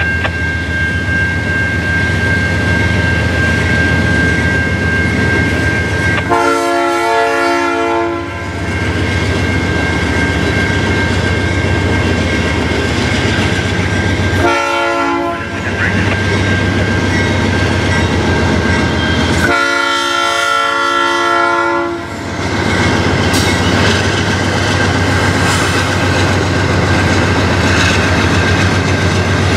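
Canadian Pacific diesel freight locomotive sounding its multi-chime air horn three times for a grade crossing: a long blast, a shorter one, and a long one. Between the blasts the crossing bell rings steadily and the diesel engine rumbles, and near the end the locomotive and freight cars roll past with wheel clatter.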